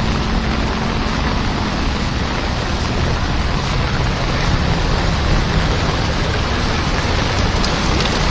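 Steady, dense rush of heavy rain mixed with the wash of water churned up as a vehicle drives along a flooded road.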